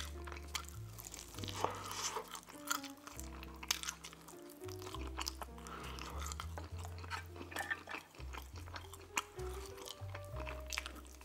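Close-miked chewing and lip-smacking of a man eating a buffalo chicken wing and pulling the meat off the bone, with irregular sharp mouth clicks. Background music with a steady bass line plays under it.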